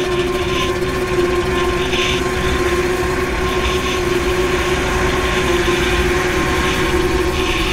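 Background music with held, sustained tones over a low rumble.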